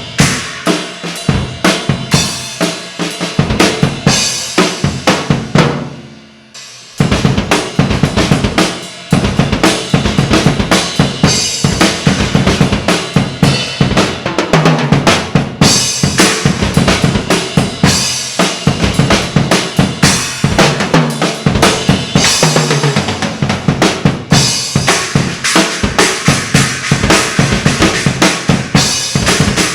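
Eight-piece Ludwig BackBeat drum kit, with two DW 3000 kick drums, a steel Ludwig snare, toms and cymbals, played fast with busy kick drums and cymbal crashes, heard as an unprocessed mixer feed from the kit's microphones. About six seconds in, the playing dies away briefly, then resumes.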